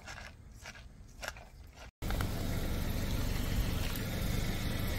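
Faint clicks at first, then, from about two seconds in, a car engine idling steadily.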